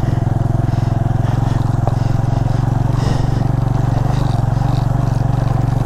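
Suzuki GS150 motorcycle's single-cylinder four-stroke engine running steadily under way, with an even, rapid firing pulse and no change in speed.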